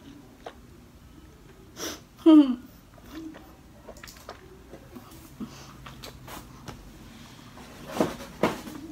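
A woman with a mouthful of very spicy noodles breathing hard and sniffling against the burn, with a loud short moan falling in pitch about two seconds in and two sharp nasal breaths near the end.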